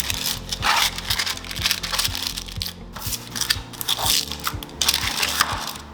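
Parchment paper crinkling in irregular rustles as it is pressed into a greased baking pan, over background music with a steady beat.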